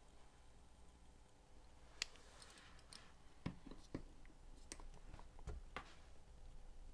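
Faint, scattered clicks of a plastic XT150 connector and its pins being handled and pressed into the housing, with a sharper click about two seconds in. A click like this is the sign that a pin has snapped home in the housing.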